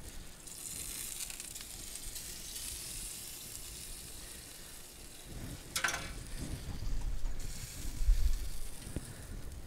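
Chicken and cream sauce sizzling steadily in a cast iron skillet on a hot flat-top griddle. A sharp click about six seconds in, then low rumbling thumps.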